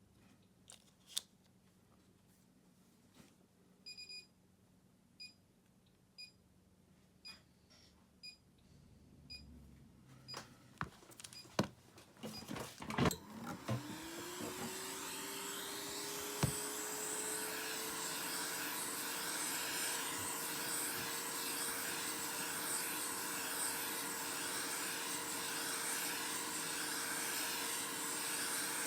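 A hot air tool for heating a phone's back glass: a few clicks and short beeps about once a second as it is set, then its fan spins up quickly, rising in pitch to a steady hum, and it blows with a loud, steady hiss.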